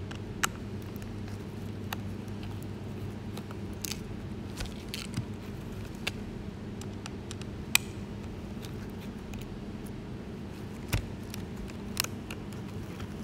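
Scattered sharp clicks and taps of hard plastic parts of a small RC helicopter being handled (canopy, frame, rotor blade grip), over a steady low hum.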